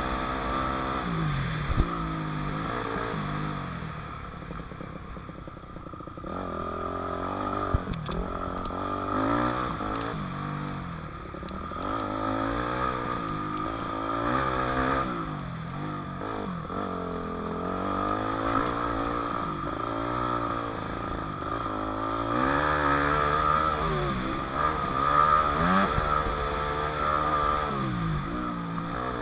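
A 2006 Yamaha 250F dirt bike's four-stroke single-cylinder engine, heard from the rider's helmet while riding a track, revving up and falling back over and over as the rider works the throttle and shifts. It eases off for a few seconds a little way in, and there are a few sharp knocks from the ride.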